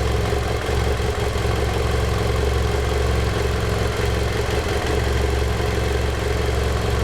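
2010 BMW F800GS's Rotax-built parallel-twin engine running steadily at idle, with the bad mechanical noise that the owner can't place, wondering whether it is the valves or piston slap.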